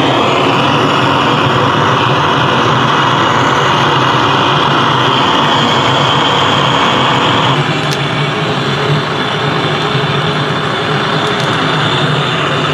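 Handheld gas blowtorch burning with a steady loud hiss, its flame held into a wood stove's firebox to light the firewood. The hiss changes tone about seven and a half seconds in.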